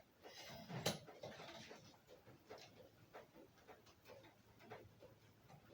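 Faint clicks and taps of a hand-operated brake-pipe flaring tool being tightened down on the pipe, with one sharper click about a second in.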